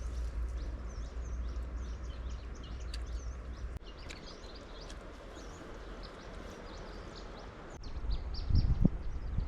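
Small birds chirping, many short calls overlapping, over a low rumble. A few low thumps about eight seconds in are the loudest sound.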